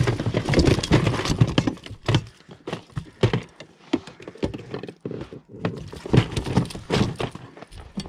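Irregular knocks, slaps and rustling as a caught pike is handled in a landing net on the floor of an inflatable boat and lifted out with a lip grip.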